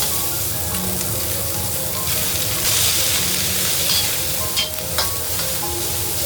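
Food frying and sizzling in a hot pan while it is stirred, a steady hiss with two sharp clicks about three-quarters of the way through, over light background music.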